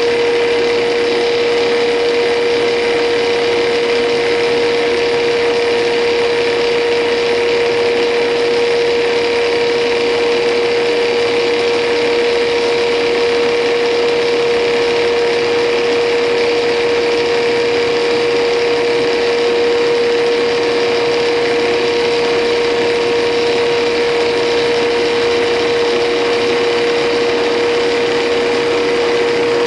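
Intorex CI 1500 hydraulic copy lathe running steadily as it turns a wooden baseball bat blank, a loud even hum with one strong steady tone over a noisy cutting hiss.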